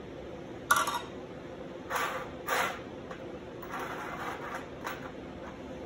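Steel chain links and a flat steel bar handled on a sheet-metal tabletop. There is one sharp metallic clank about a second in, then two scraping rattles a moment apart, then lighter clinks of chain links being nudged into place.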